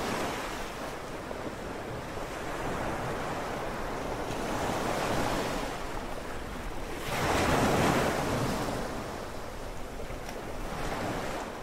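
Sea waves washing in slow surges with wind, swelling and easing every few seconds; the biggest surge comes about seven to eight seconds in.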